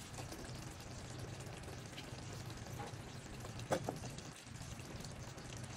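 Coconut-milk curry sauce simmering faintly in a pan, with a couple of soft knocks a little past halfway as bell pepper pieces are dropped in.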